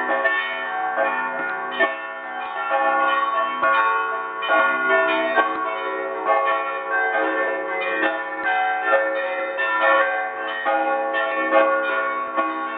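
Church bells pealing close up in the belfry: several bells struck in quick, steady succession, their tones overlapping and ringing on.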